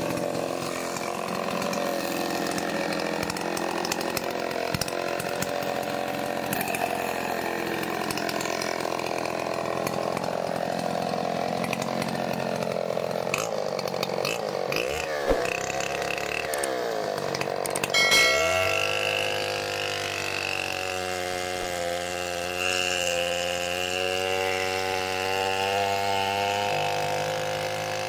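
Large 105 cc gasoline chainsaw with a 30-inch bar running. About halfway its revs rise and fall, then it runs at steady speed as the chain cuts into a log near the end.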